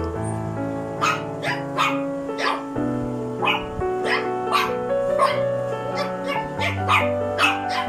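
Background music with sustained chords, over a quick run of short dog yips, about two or three a second.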